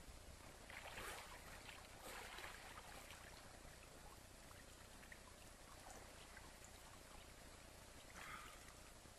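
Faint splashing of water as a person wades in a river, a few soft splashes about a second in, around two to three seconds and again near the end, over a quiet steady hiss.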